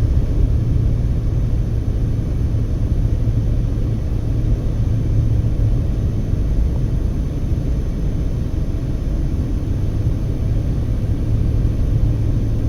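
Steady low rumble of a car driving at road speed: tyre, road and engine noise heard from inside the moving car.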